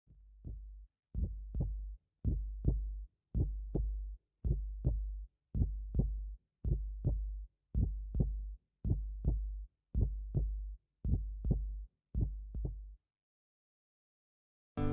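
Heartbeat sound effect: a slow, steady lub-dub of deep double thumps, about one pair a second, repeating about a dozen times and then stopping.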